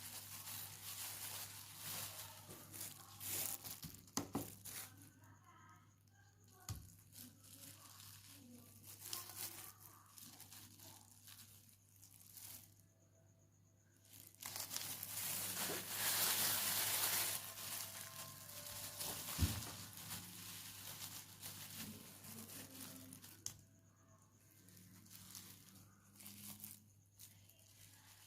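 Crinkling and rustling of material being handled at a work surface, coming and going with short quiet gaps, with a few light knocks over a faint steady hum.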